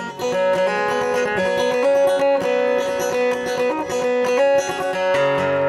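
Live acoustic guitar playing the instrumental opening of a folk song, with no singing; lower notes join in near the end.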